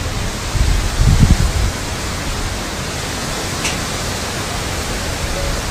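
Typhoon wind: a steady rushing hiss, with gusts buffeting the microphone as low rumbles in the first second and a half.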